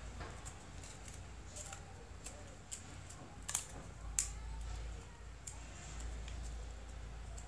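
Folded craft paper crinkling and rustling as it is handled, a scatter of small crisp clicks, the two sharpest about halfway through.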